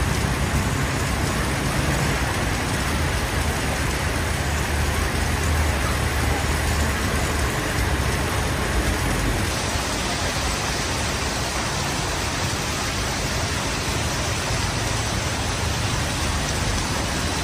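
Road vehicle engine running low and steady under a constant hiss of heavy rain; the engine's rumble drops away about halfway through while the rain hiss goes on.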